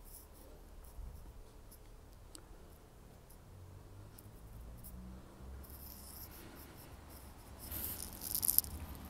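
Faint scratchy rustling and small clicks, the handling noise of a camera being carried around, with a louder scratchy burst about eight seconds in.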